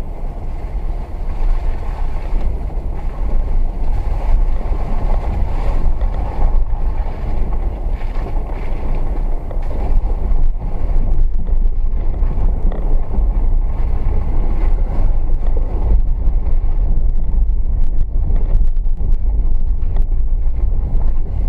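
Dacia Duster crawling at walking pace along a rough dirt track, heard from inside the cabin: a steady low rumble of engine and tyres over the ruts.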